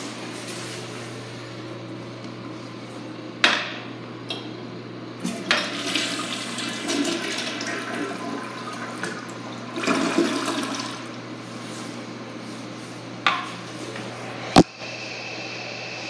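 A 2004 Mansfield Alto toilet flushing: water rushes in suddenly about three and a half seconds in and swirls noisily through the bowl for several seconds before easing off. A sharp click comes near the end.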